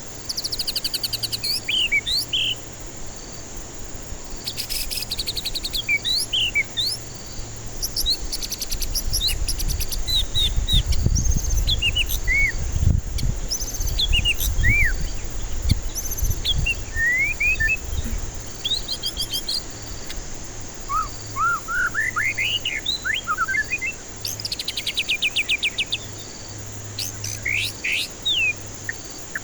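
White-rumped shama singing a varied song of clear whistles, rising and falling slurs and fast rattling trills. A low rumble sits under it through the middle.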